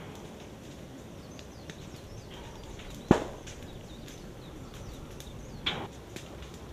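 Active lava flow crackling, with many small scattered ticks over a low steady rush. A loud sharp pop about three seconds in and a weaker one a little before the end.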